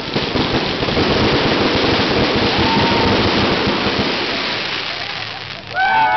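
Aerial fireworks bursting overhead in a dense, continuous crackle of many tiny rapid reports that dies away near the end. Voices break into cheering just before the end.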